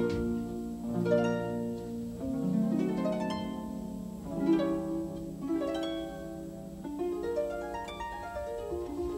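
Orchestral ballet music: harp arpeggios with pizzicato strings, plucked notes ringing over one another in repeated rising figures.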